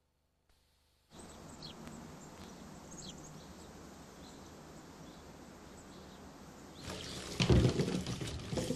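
Steady outdoor ambience with a few faint bird chirps, starting after about a second of silence. About seven seconds in, it gives way to louder water splashing in a bath.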